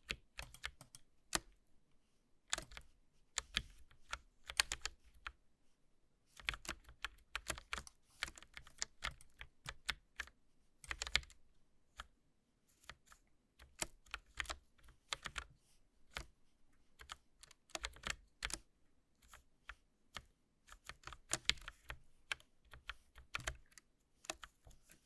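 Clicky mechanical keyboard keys pressed in irregular clusters of quick clicks with short pauses between, as in gaming.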